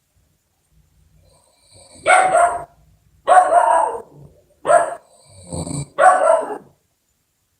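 Five short, loud, bark-like sounds, each with a clear pitch, spaced about a second apart; the fourth is lower-pitched and rougher than the others.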